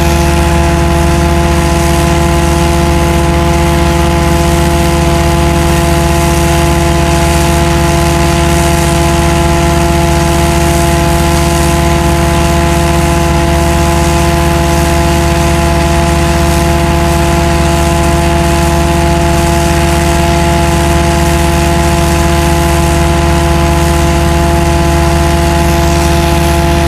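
Combined sewer jetting and vacuum unit running steadily at full work, its engine driving the high-pressure water pump and the vacuum together. A loud, unchanging drone with several constant pitches over a steady rushing noise.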